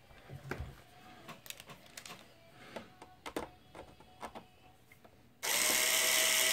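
Faint scattered clicks and taps as a screwdriver tip is set on a screw in a plastic projector case, then about five seconds in a small DeWalt powered screwdriver starts running steadily with a constant whine, backing the screw out.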